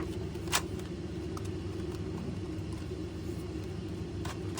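A toy blaster being worked by hand as it is closed after loading, giving a few sharp clicks: one loud click about half a second in and a couple more near the end. A steady low hum runs underneath.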